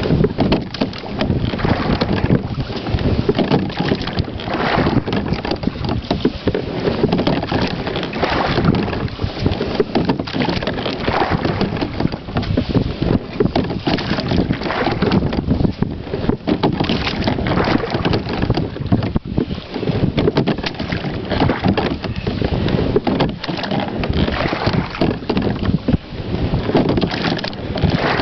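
Slide-seat rowing in a Whitehall Spirit Solo14 rowboat: the carbon-fibre oar blades dip and splash with each stroke. Steady wind noise on the microphone runs throughout.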